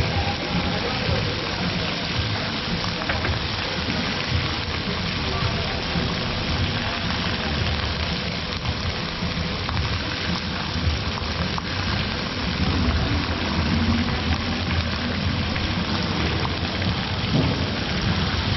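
Meat sizzling on a hot grill or roasting pan: a steady crackling hiss with a low rumble underneath.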